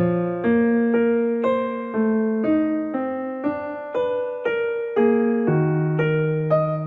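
Background music: a keyboard melody of struck notes, about two a second, each note fading before the next.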